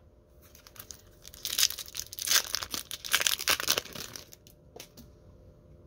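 A Topps sticker pack wrapper being torn open and crinkled: a crackly rustling that builds about a second and a half in and stops about four seconds in, followed by a few light clicks.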